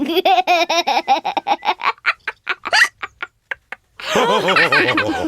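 Cartoon pig characters laughing together in rhythmic, wavering laugh pulses that quicken and fade out about three seconds in, followed by a short pause and a fresh burst of laughter near the end.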